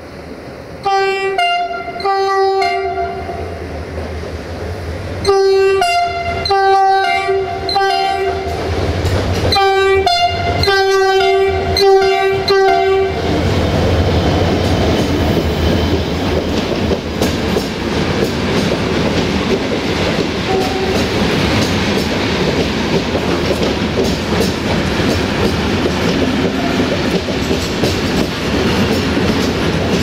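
The multi-tone air horn of diesel-electric locomotive 64-1000-0 sounding a series of about nine short blasts in three groups (two, three, then four). Then passenger coaches roll past close by, with wheel clickety-clack over the rail joints.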